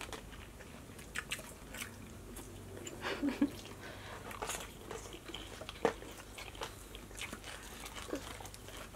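Close eating sounds: chewing and biting of crisp Caesar salad and barbecue riblets, with scattered soft crunches and clicks.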